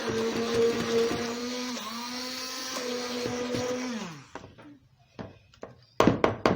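Electric mixer beating chocolate cake batter at a steady speed, then switched off about four seconds in, its motor winding down with a falling pitch. A few faint clicks follow before a voice starts near the end.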